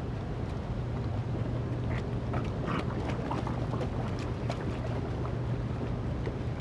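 Water splashing and sloshing as cownose rays thrash at the surface of a tank while being hand-fed, with scattered small splashes over a steady low hum.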